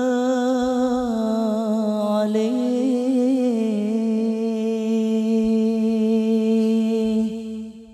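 A young man's solo voice singing an Arabic devotional song (sholawat) unaccompanied into a microphone, drawing out vowels with ornamented turns, then holding one long steady note that fades out near the end.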